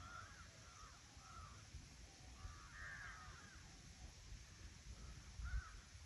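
Birds calling in scattered bursts of short, arched, crow-like notes over a faint low rumble, which bumps louder a couple of times near the end.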